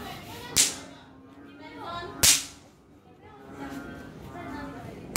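Snap pops (bang snaps) thrown down onto paving, each going off with a sharp crack: one about half a second in, another a little after two seconds, and a third at the very end.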